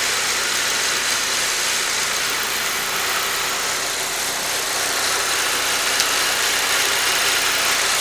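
2008 Saab 9-3 2.0 turbo four-cylinder engine idling steadily. It idles smoothly despite a stored random misfire code; the mechanic feels no misfire and suspects a software glitch.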